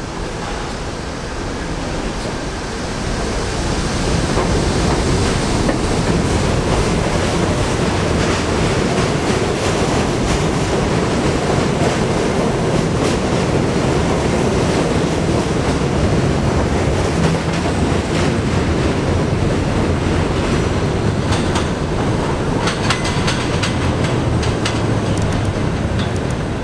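New York City Subway G train running into the station and past along the platform track, its wheels rumbling and clacking on the rails. The noise builds over the first few seconds and then stays loud and steady, with a run of sharp clicks near the end.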